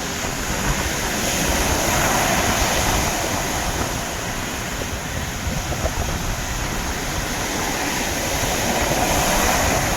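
Sea waves breaking on a shore: a continuous, loud roar of surf that swells about two seconds in and again near the end.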